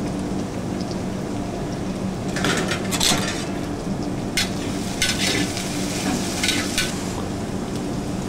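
Steady hum of commercial kitchen equipment, with a few short bursts of crinkly hiss over it.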